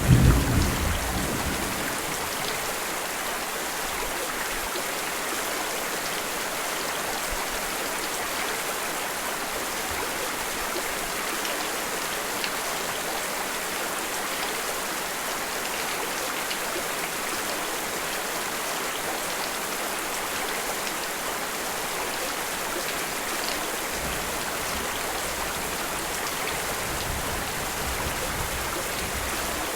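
Steady rain falling, an even hiss of drops. A low thunder rumble fades away in the first second or two, and a faint low rumble comes back near the end.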